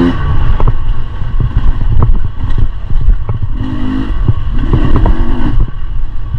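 Beta 300 RR two-stroke dirt bike ridden over rough single track, its engine revving briefly twice near the middle over a heavy low rumble. Many sharp knocks and clattering come from the bike over the rough ground.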